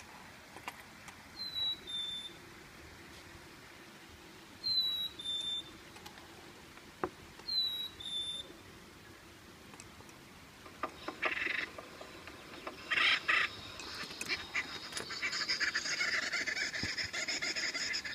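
Black-capped chickadee's two-note 'fee-bee' whistle, the second note lower, sung three times and played from a push-button sound player on a wildlife sign. From about eleven seconds in, a different, raspier and noisier animal call plays in its place and grows denser near the end.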